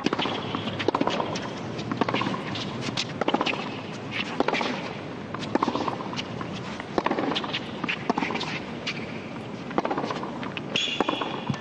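Tennis rally on a hard court: the ball is struck by racquets and bounces, giving sharp cracks at uneven intervals, roughly one a second.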